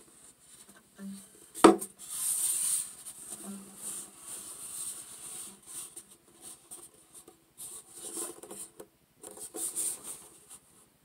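Handling noise from a solid-mahogany tenor ukulele being turned over and shown: hands rubbing and bumping on its wooden body, with one sharp knock a little under two seconds in. No strings are played.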